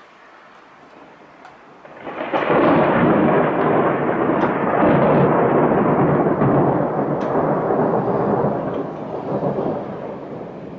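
A loud roll of thunder breaks suddenly about two seconds in, rumbles for several seconds and slowly fades away.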